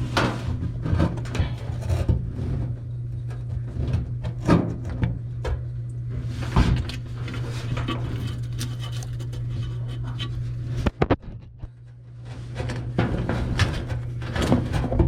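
Irregular knocks, clicks and scrapes of hands working a washing machine suspension rod into place from underneath the drum, over a steady low hum.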